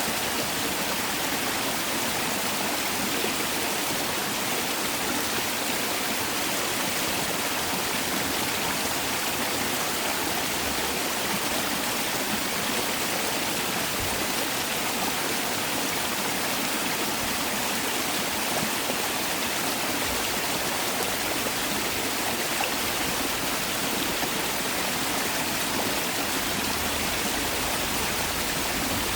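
Mountain valley stream flowing over rocks, a steady, even rush of water without breaks.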